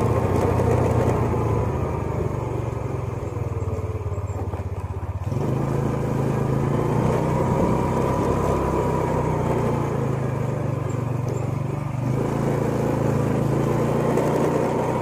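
Motorcycle engine running as it is ridden along a street, heard from the rider's seat. Its note steps up about five seconds in and then holds steady.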